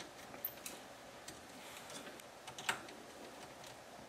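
A handful of faint, irregular clicks as a small hand driver turns the tight screws holding the hotend to a Creality K1 Max tool head; the sharpest click comes about two-thirds of the way in.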